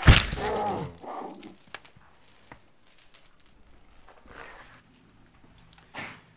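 A heavy blow lands on a chained zombie-like creature with a loud thump, and the creature lets out a wavering cry for about a second. Light metallic clinks and rattles of its neck chain follow, with another short thump near the end.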